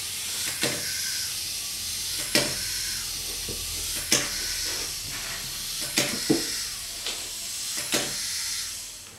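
Clockwork of a wind-up toy frog whirring steadily, with a sharp clack about every two seconds as the frog flips and lands on the tabletop. The whirring dies away near the end as the spring runs down.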